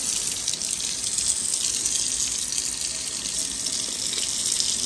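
Kitchen faucet running hot water steadily into a sink.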